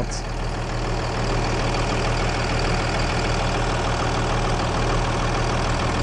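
Cummins 5.9-liter inline-six turbo diesel engine idling steadily, heard with its engine cover off, a fast even clatter over a low drone.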